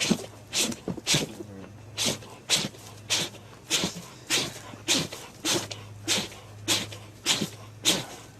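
A pet animal in a long fit of sneezing: short, sharp sneezes repeating evenly, roughly two every second.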